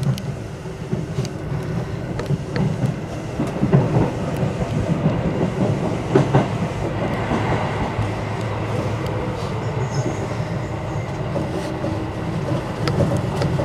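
Seibu 2000 series electric train running, heard from inside the driver's cab: a steady rumble with irregular clicks and knocks as the wheels cross rail joints and points.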